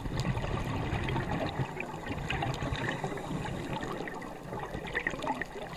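Scuba regulator exhaust: a long exhalation of bubbles gurgling and rumbling past the microphone, with dense crackling throughout, between the hiss of inhalations.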